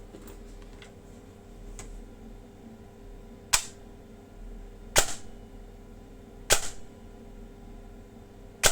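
Electric airsoft gun with a brushless motor and an 18:1 DSG gearbox, test-fired with three single shots about a second and a half apart. Each is a sharp crack of the gearbox cycling and the piston slamming forward. Right at the end a quick string of shots begins.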